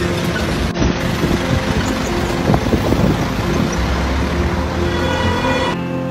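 City street traffic noise from passing cars and motorbikes, with background music over it. The street noise drops away near the end while the music carries on.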